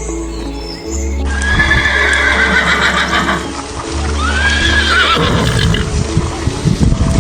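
A horse whinnying twice, a long falling whinny about a second in and a shorter rising-and-falling one near four seconds in, followed by hoof clip-clops, over background music.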